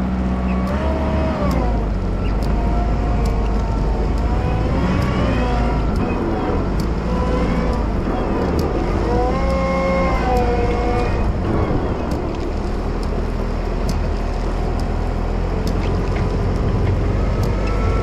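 Wheel loader's diesel engine running steadily while plowing snow, with whines that rise and fall in pitch over the rumble several times.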